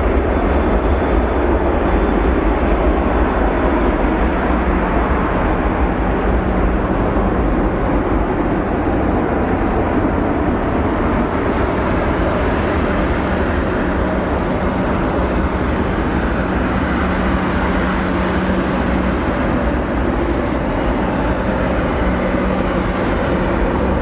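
Boeing 787-9 jet airliner taking off, its twin turbofan engines at takeoff thrust: a loud, steady rumble with a constant hum running through it.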